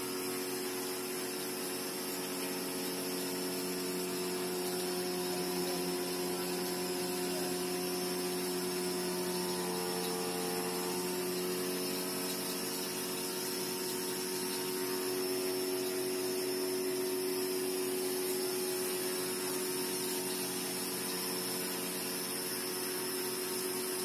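Homemade cotton candy machine running: the 12-volt DC motor spinning the head gives a steady whine over a constant hiss as the floss is flung into the bowl.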